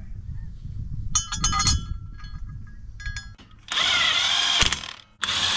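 Metal parts clinking and rattling, then a power drill run in two bursts of about a second each, drilling into a metal mounting bracket on the tractor.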